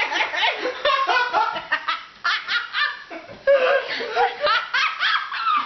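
People laughing hard, high-pitched laughs coming in quick repeated pulses with no words.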